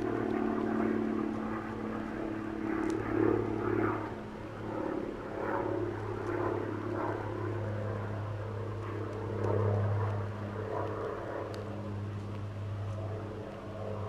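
A steady low engine-like drone, swelling and easing a little, with a few faint sharp clicks over it.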